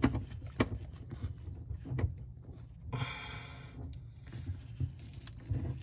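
A hand in a work glove turns the red handwheel of a gate valve on the cold-water line under a sink, shutting the water off. There are handling knocks and rubbing against the pipes, and a brief raspy squeak about three seconds in.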